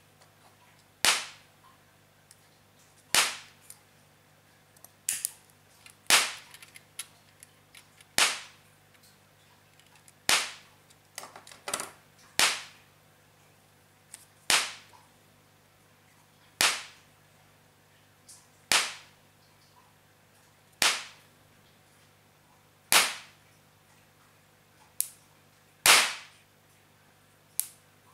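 High-voltage sparks snapping across the electrode gap of a DIY spark generator built to ignite a small jet engine: one sharp crack about every two seconds, with a few fainter clicks between them, over a faint low hum.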